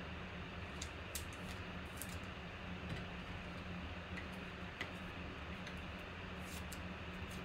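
Faint, scattered clicks and light scrapes of a trading card being handled and slid into a clear rigid plastic holder, over a steady low hum.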